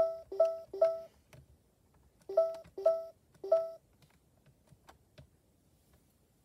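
LeapFrog Clic the ABC 123 Laptop toy beeping as its volume arrow button is pressed: short two-tone electronic beeps, three in the first second and three more about two and a half to three and a half seconds in. A few faint clicks of its plastic buttons follow.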